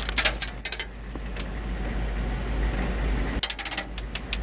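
Airsoft guns firing, rapid sharp snaps in short bursts near the start and again from about three and a half seconds in, over the steady low rumble of a vehicle's engine.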